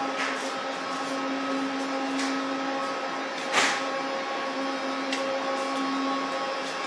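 Scarborough RT train car, heard from inside: steady running noise with a steady hum and higher overtones, and a single sharp knock about three and a half seconds in.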